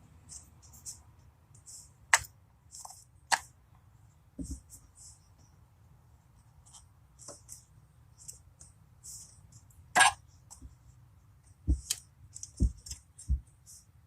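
Irregular clicks and light metallic clinks of hand tools and parts being handled, with a few dull knocks; the sharpest click comes about ten seconds in.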